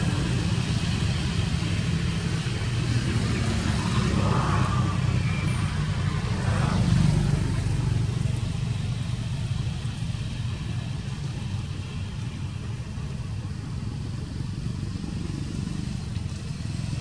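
A steady low engine rumble, swelling briefly about four to seven seconds in.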